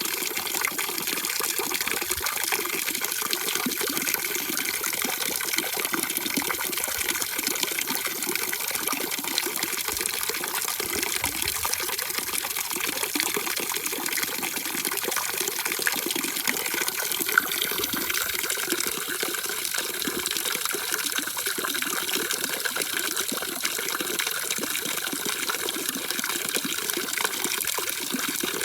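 Steady, unbroken rushing of water, with one brief tick about two-thirds of the way through.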